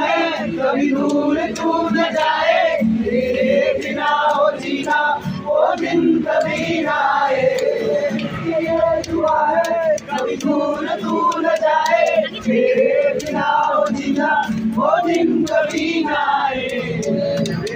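A crowd singing together: many voices at once, held on long notes, loud and unbroken.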